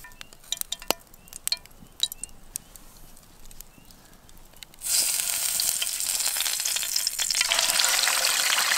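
Bacon frying in a frying pan over a campfire: a few seconds of scattered crackles and pops, then about five seconds in a loud, steady sizzle starts suddenly and keeps going.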